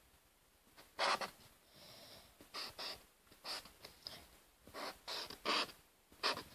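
Pen strokes on paper: a series of short separate scratches, about eight of them at an uneven pace, as block capital letters are written out.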